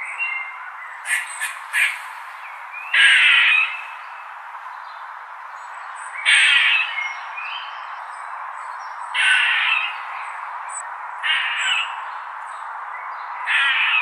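Squirrel calling: a buzzy call of about half a second, given five times a few seconds apart, with three short sharp chips about a second in, over a steady background hiss.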